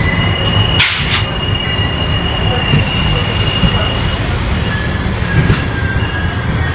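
Passenger train running at speed: a steady low rumble with a knock about a second in, and the wheels squealing in a high steady tone for about three seconds, then a lower squeal near the end.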